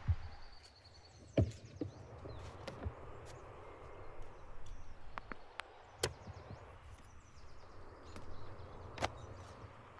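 Handling sounds of firewood and raw meat: a few sharp knocks and thuds a few seconds apart over a steady hiss, with faint high chirps in the background.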